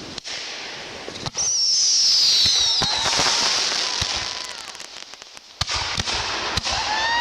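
Fireworks going off: several sharp bangs, a whistle that falls in pitch about a second and a half in, and a loud crackling hiss that fades out about five seconds in.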